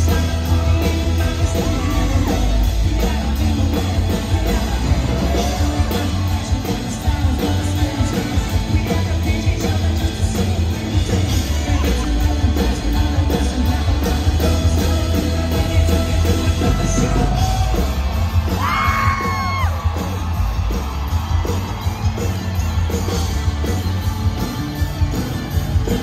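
Live country-rock band playing: drums and bass under acoustic guitar, with long sung notes and shouts from the crowd.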